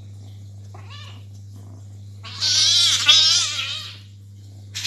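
Domestic cat yowling: a short wavering cry about a second in, then a loud, long, wavering yowl lasting nearly two seconds, and another cry beginning at the very end.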